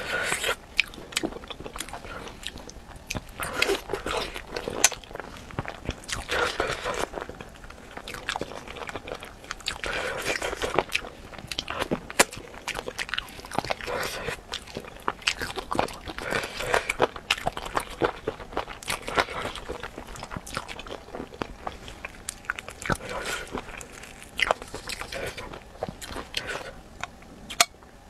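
Eating spicy chicken feet: repeated biting and chewing, with many sharp crunches and clicks.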